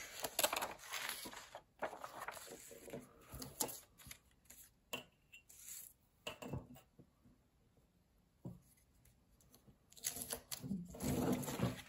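Magazine pages rustling and being shifted about on a wooden drafting table, with scattered light taps and clicks as a steel ruler is set down. The noise thins out to quiet for a few seconds, and near the end the handling rises again as an X-Acto knife is set against the ruler to cut the paper.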